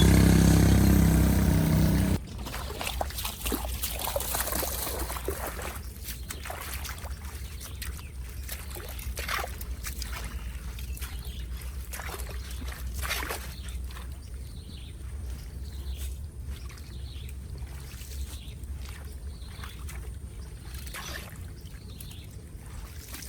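A loud pitched sound for the first two seconds cuts off suddenly. It gives way to water trickling and sloshing, with a steady low rumble and scattered small knocks and splashes.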